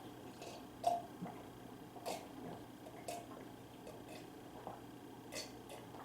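Eating sounds: about half a dozen short, scattered clicks and wet smacks of mouth, chopsticks and dish over a faint room hum.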